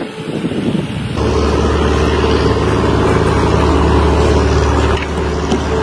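An engine running steadily with a low, even hum, starting abruptly about a second in.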